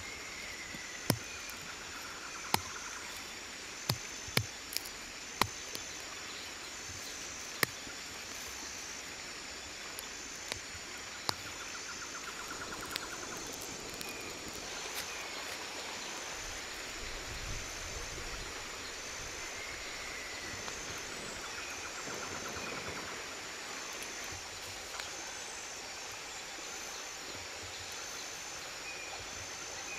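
Machete blade striking soil while digging: about nine sharp knocks in the first dozen seconds. Under it is a steady background of forest insects, one of them calling high and pulsing about once a second.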